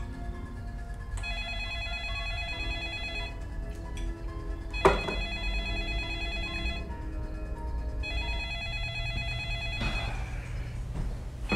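Telephone ringing with an electronic ring, three rings of about two seconds each with short gaps between them, over low background music. A single sharp knock about five seconds in is the loudest sound.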